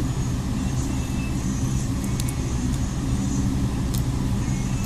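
A steady low hum throughout, with a few faint light clicks, about two seconds in and near the end, as the SIM card and SD card are taken out of the phone.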